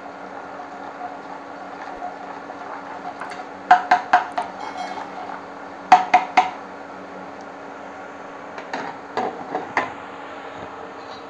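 Steel ladle scraping and clinking against a perforated steel boondi ladle as gram-flour batter is rubbed through it, in three short runs of sharp clinks a few seconds apart. Underneath, a steady sizzle from the batter drops frying in hot oil.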